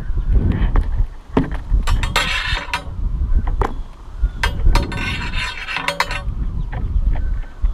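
Wind buffeting the microphone of a camera riding inside a dangling payload capsule, with two longer bursts of rustling and scraping as the capsule turns and its lining rubs against the camera, and a few sharp clicks.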